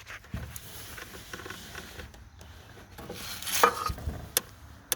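Hands rummaging around hoses and debris under a removed panel: light rustling with small clicks and knocks, a couple of louder knocks late on and a sharp click at the end.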